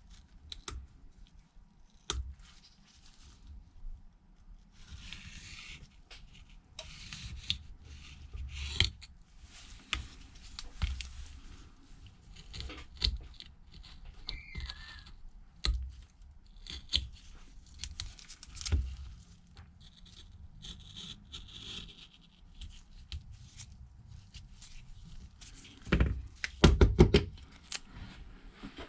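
A tool scraping and picking leftover broken screen glass and adhesive off a phone's frame: irregular scratches, rasps and small clicks, with a few louder knocks near the end.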